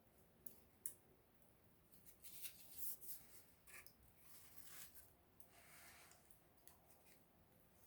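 Small wood campfire crackling faintly: a couple of sharp pops about half a second in, then bursts of crackling and a soft hiss through the middle.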